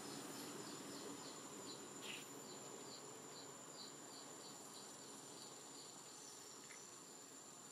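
Faint outdoor insect sounds: a run of short, high chirps repeated about three times a second, stopping a little over two-thirds of the way through, over a thin steady high-pitched whine.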